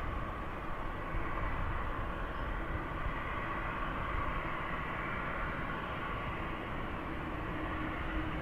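Jet airliner engines running: a steady mechanical noise with a faint whine and low rumble.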